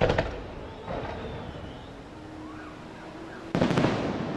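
Fireworks going off: a loud bang at the start, a softer one about a second in, then a loud cluster of quick bangs near the end.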